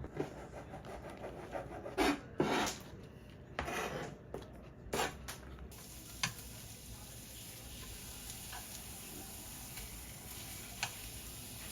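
Cutlery and dishes clattering and scraping, with several short knocks in the first half. After that only a quiet background with an occasional faint click.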